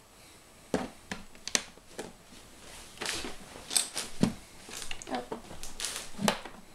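Plastic Lego bricks clicking and clattering as hands rummage through loose pieces and press one onto a baseplate: a string of sharp, irregular clicks starting about a second in.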